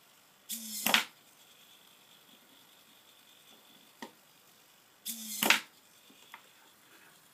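Hobby servo whirring for about half a second as it drives a 3D-printed PLA robot finger through its stroke, ending in a sharp click. It happens twice, about four and a half seconds apart.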